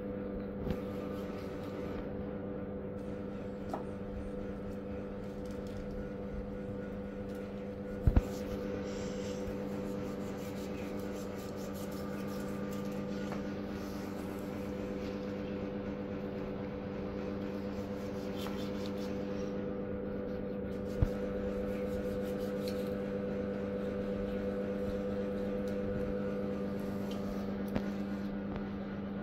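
Steady machine hum of several pitched tones, from an appliance running in the room, with a few sharp knocks of a knife against a metal tray as raw meat is cut, the loudest about 8 seconds in and about 21 seconds in.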